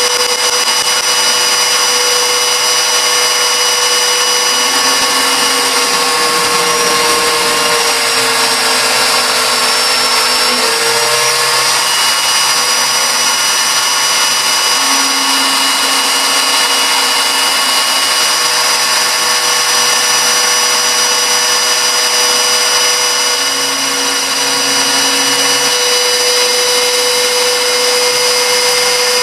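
TL518ER milling machine with its end mill contouring a block of 6061 aluminum: a steady high-pitched spindle whine over the cutting noise. The pitch sags briefly about ten seconds in, then recovers. A lower hum comes and goes every few seconds.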